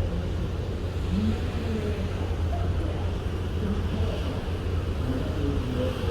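Steady low rumble with wind noise aboard a ship at sea, with faint, indistinct voices in the background.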